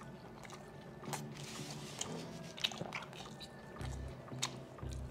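Faint background music with a low bass line, under quiet chewing and small mouth clicks of people eating a burger.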